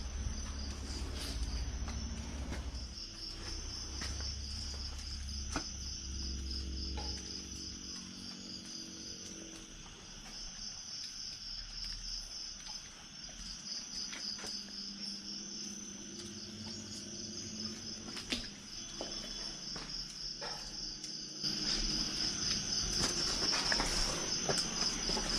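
A chorus of night insects, such as crickets, chirring in a steady, high, pulsing trill, with a few faint clicks and knocks scattered through it.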